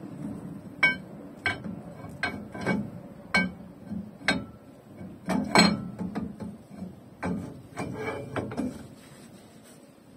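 Rear axle shaft and hub of a 2004 Dodge Ram 1500 being worked into the axle housing by hand: about a dozen irregular metallic clinks and clanks, some ringing, the loudest about a second in and about halfway through.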